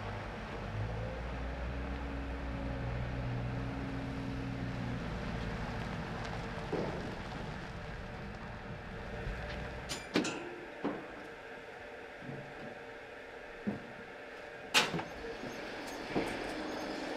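Heavy articulated truck's diesel engine running steadily at low revs as it manoeuvres with a load of granite blocks. After about ten seconds the engine sound gives way to a handful of sharp knocks and clanks, the loudest about fifteen seconds in.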